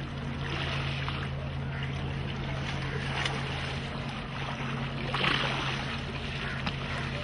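Swimmers splashing through sea water, with a louder splash about five seconds in, over a steady low motor hum.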